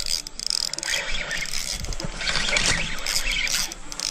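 Shimano spinning reel being cranked by hand, its gears and rotor giving a rough, clicking mechanical whir as line is wound in.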